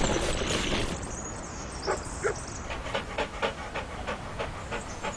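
A small dog panting quickly, about four short breaths a second, with a couple of brief whimpers about two seconds in. A louder rushing noise cuts off about a second in.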